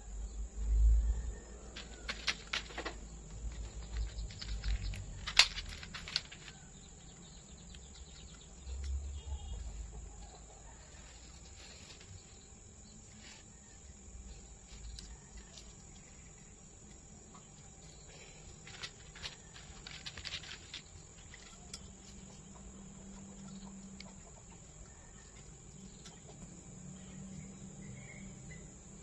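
Scraping and clicking of nylon trimmer line being pulled through the slots of a plastic grass-trimmer disc, in scattered clusters with quiet stretches between, and a few low handling thumps.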